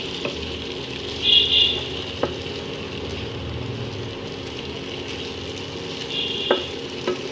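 Chicken and vegetables sizzling steadily in a pan as they are stirred, with a utensil scraping across the pan twice and a few sharp knocks against it.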